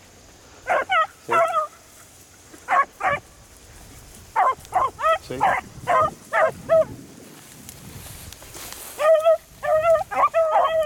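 Two beagle hounds giving tongue on a rabbit's scent: short, pitched barks, first in ones and twos, then in quick runs that come thickest about nine seconds in.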